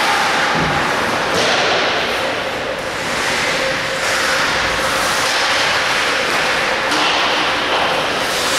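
Ice hockey practice on a rink: a steady loud hiss of skates scraping and carving the ice, with occasional knocks of sticks and puck.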